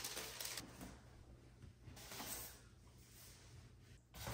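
Faint handling noise from unboxing a turntable: a few soft scrapes and rustles of cardboard and packaging being moved, with a pause between strokes.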